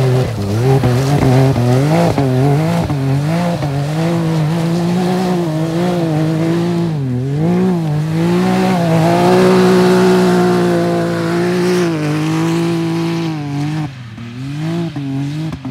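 Can-Am Maverick X3 side-by-side's turbocharged three-cylinder engine revving up and down while the machine slides in circles on snowy ice. About nine seconds in it holds a higher, steadier rev for a few seconds, then it fades as the vehicle pulls away near the end.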